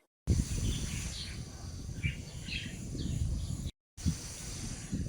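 Outdoor seaside ambience: a rough low rumble of wind buffeting the microphone, with scattered short high chirps. The sound cuts out completely twice, briefly at the start and again just before the end.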